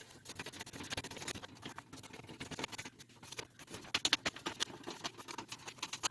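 Loosened small metal nuts being spun off the threaded pot and jack bushings of a Korg MS-20 panel by hand: an irregular run of light clicks and scratches, with a busier cluster about four seconds in.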